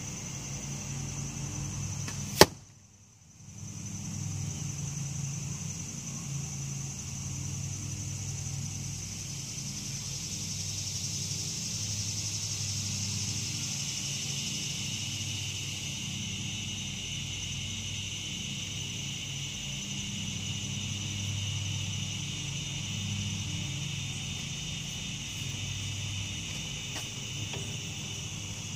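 A broadhead-tipped arrow slamming into a foam block target once, about two seconds in: a single sharp smack. Steady high insect buzzing fills the rest.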